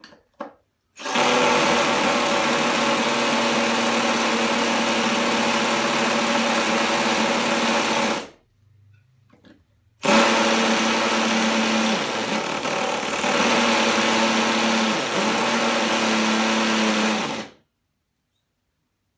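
Ryobi cordless drill with a large bit boring into a ceramic wall tile, its motor running at a steady speed with the bit grinding against the tile. It runs in two long stretches of about seven seconds each with a short pause between, then stops shortly before the end.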